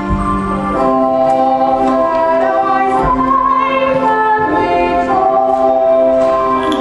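Live stage-musical number: singing in long held notes over instrumental accompaniment.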